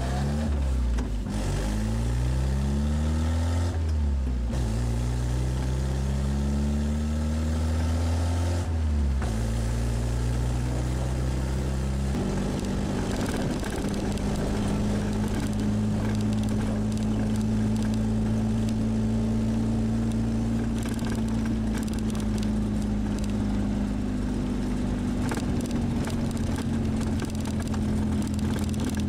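Škoda 440 Spartak's four-cylinder engine, heard from inside the cabin while driving. The revs climb and drop several times over the first several seconds, then hold nearly steady at cruising speed.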